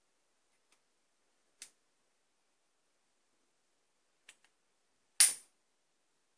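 Wooden rubber-band revolver handled and fired: a few light clicks from its wooden mechanism, then about five seconds in one loud, sharp snap as it shoots a rubber band.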